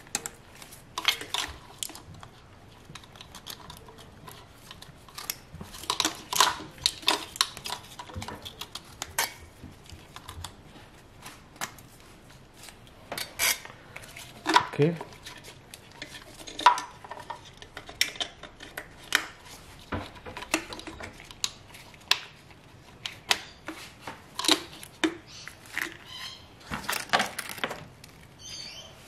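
Irregular plastic clicks and clatter of a Toyota 2ZR engine's fuel-injector wiring harness being handled and its connectors pushed back onto the injectors.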